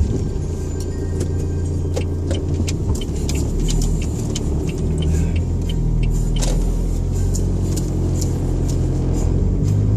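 Renault car's cabin as it moves off from the kerb: low engine and road rumble, with a run of sharp ticks over it.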